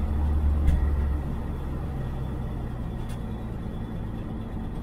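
1978 Chevy Nova driving, a low engine and road drone that eases off and quietens about a second in.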